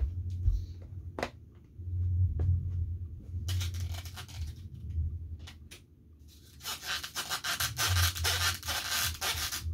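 Handling noise: rubbing and scraping with a few sharp clicks, growing into a steadier rustle over the last few seconds.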